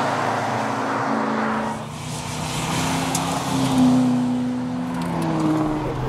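HSV VX Clubsport's 5.7-litre V8 driven hard past, its engine note rising and falling as the revs change, loudest a little past the middle.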